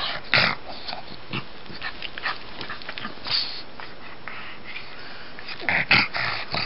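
A pug snorting and wheezing in short, noisy bursts while play-wrestling on its back, with a louder flurry near the end.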